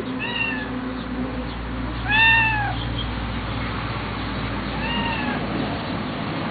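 Kitten meowing three times, a few seconds apart. Each short meow rises and then falls in pitch, and the loudest comes about two seconds in.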